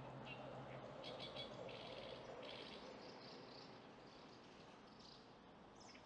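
Faint chirping of house martins: a run of short, high twittering calls from about a second in, and a few more near the end, over low, steady background noise.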